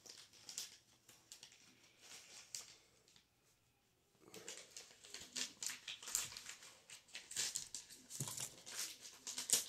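Soft rustling and crinkling handling noise from a phone held close while the person moves, with scattered small ticks. It cuts to dead silence for about a second a little past three seconds in, then the rustling comes back busier.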